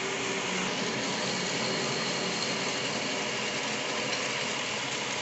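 Lathe running steadily during a turning pass, with the carriage on automatic feed taking the tool along the workpiece: an even machine hum with a faint steady whine.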